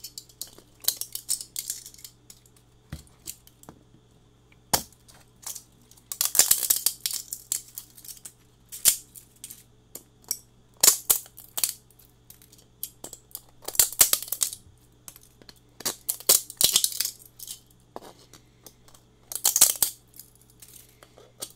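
Plastic support material on a 3D print crackling and snapping as needle-nose pliers clamp into it and twist it off, in short bursts of sharp cracks every couple of seconds.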